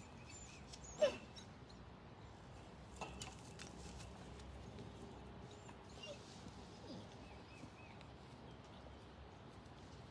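A dog gives one short whimper about a second in, falling in pitch. After it there are only a few faint clicks and small noises.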